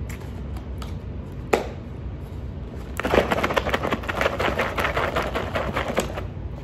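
A poke bowl in a plastic takeout container being shaken hard. There is a single knock about a second and a half in, then from about three seconds in a fast, dense rattle of food and lid knocking inside the container, lasting about three seconds.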